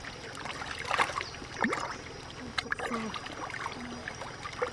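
Water splashing and sloshing as hands rub raw chicken wings clean in a shallow stream, in irregular small splashes over the stream's steady trickle. The loudest splash comes about a second in.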